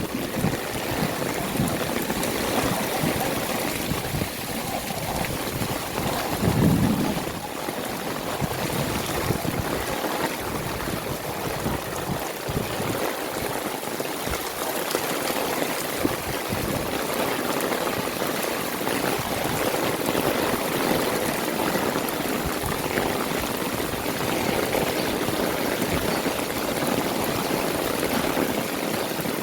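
Heavy rain falling steadily, with water running and pouring. About seven seconds in there is a brief low rumble.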